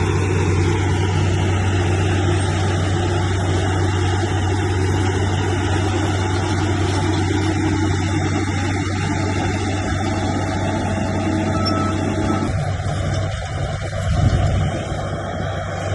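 Bulldozer's heavy diesel engine running steadily under work, with a brief louder surge near the end.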